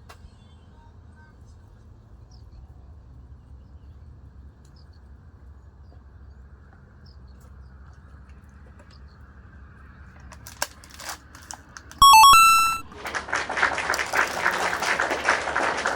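Faint low outdoor ambience, then about twelve seconds in a short, loud run of electronic beeping tones stepping in pitch. A rapid, dense clicking rattle follows and lasts to the end.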